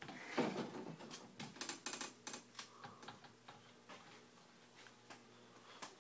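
Scattered light clicks and rustling from a handheld phone being moved and handled, busiest in the first two or three seconds, over a faint steady low hum.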